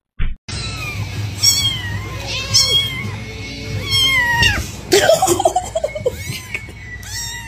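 A small kitten mewing over and over in high, falling cries, with a louder burst of lower cries about five seconds in, over a steady low hum.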